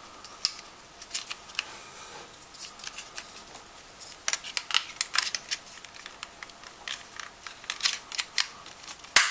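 Irregular sharp plastic clicks and taps from a plastic replica stun gun being handled while AAA batteries are fitted into its battery compartment, with the loudest click near the end.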